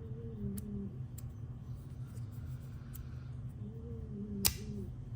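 Magnetic fidget slider being worked by hand: a few faint ticks, then one sharp click about four and a half seconds in as its magnets snap the slide into place.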